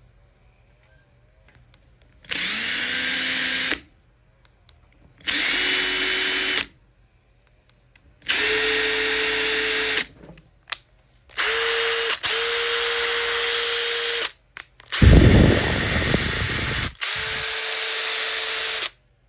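Makita TP141D 18 V cordless 4-mode impact driver run with no load in six short trigger pulls, the motor whining up to speed each time. Its pitch steps higher over the first three runs, one run is briefly interrupted, and the fifth carries a heavy low rattle under the whine.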